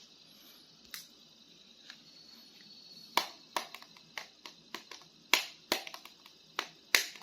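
Hard plastic of a toy and its packaging being handled: a string of sharp, irregular clicks and crackles, sparse at first and coming thick and fast from about three seconds in.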